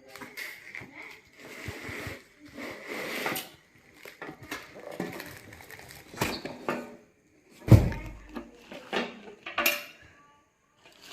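Packaging being handled and opened: irregular rustling and crinkling with small clicks and knocks, and one loud thump about eight seconds in.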